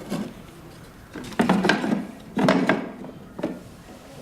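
A cover panel being handled and set in place over a heat press machine's mainboard: a short knock, then two longer stretches of rattling and scraping, and another knock.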